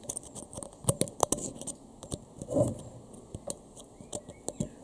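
Thin metal pick scraping and clicking inside a drilled-out bolt hole in a Honda CRX front hub, hooking out the torn remains of the old thread. Irregular light clicks and scrapes, bunched together about a second in.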